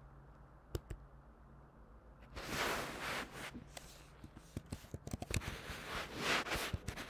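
Computer keyboard typing: a few key clicks about a second in, then a quick run of clicks later on as a crossword answer is typed. Two hissing bursts, each about a second long, are the loudest sounds, one near the middle and one near the end.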